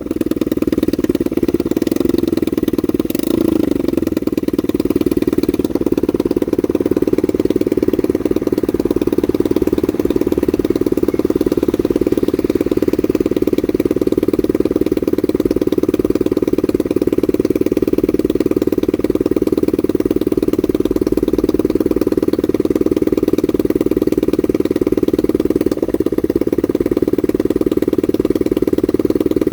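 Honda NSF100's single-cylinder four-stroke engine idling steadily.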